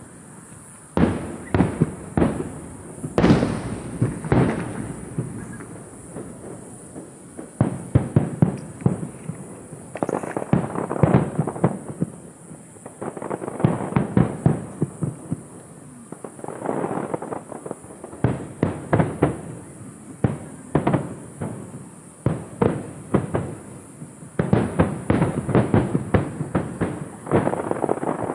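Star Mine fireworks barrage: volleys of rapid, sharp bangs from shells bursting in quick succession, grouped in runs of a few seconds with short lulls between them.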